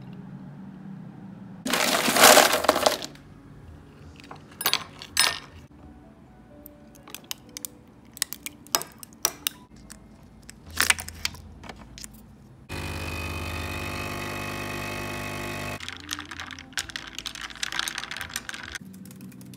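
Clinks, clicks and rustling of objects being handled over soft background music, with a loud scraping burst about two seconds in and a steady machine hum for about three seconds in the middle.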